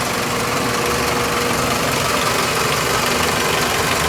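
2001 Toyota Corolla's 1.8-litre four-cylinder engine idling steadily.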